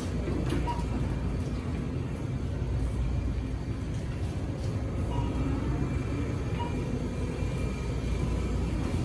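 Grocery store background noise heard while walking through the aisles: a steady low rumble, with a few faint short beeps.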